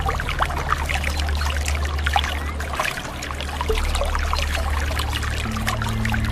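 Sea water lapping and trickling, full of small splashes and drips, over a low steady hum.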